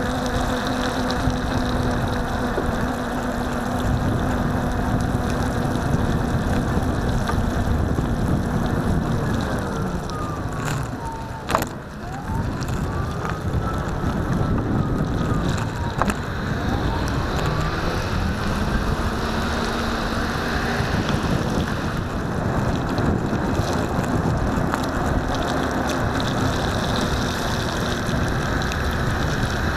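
Solowheel electric unicycle riding over wet pavement: the hub motor whines steadily over the hiss of the tyre on the wet road. About ten seconds in the whine falls in pitch as it slows, a sharp knock sounds, then the whine climbs back up as it speeds up again.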